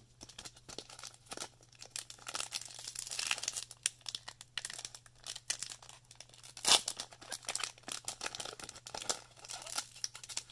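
Foil wrapper of a Magic: The Gathering booster pack being torn and crinkled open in many small, irregular rips, with one louder rip about two-thirds of the way through. It is a clumsy, badly torn opening of the pack.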